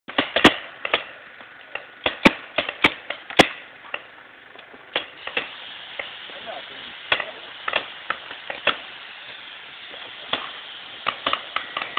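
Paintball markers firing: sharp irregular pops, several close together in the first three and a half seconds, then scattered single shots through the rest.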